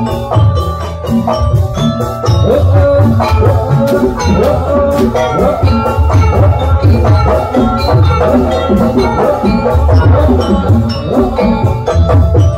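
Live Javanese gamelan music for a jathilan dance: struck bronze keyed instruments ringing a melody over steady deep drum beats, with a wavering melodic line weaving through the middle of the sound.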